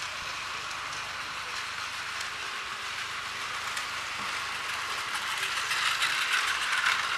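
Battery-powered Takara Tomy Plarail toy train running along plastic track: the steady whirr and clatter of its small motor, gears and wheels, growing louder near the end as it comes close.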